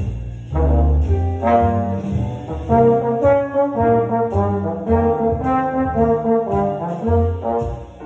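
Trombone played in a melodic phrase, a run of notes of different lengths moving up and down in pitch, with short breaths between phrases.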